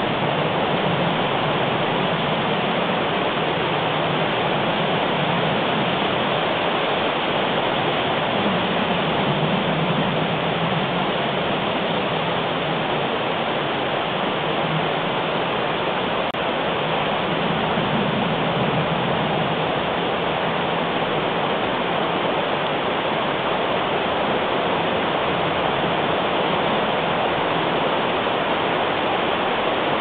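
Steady, even rushing noise with no other distinct sounds.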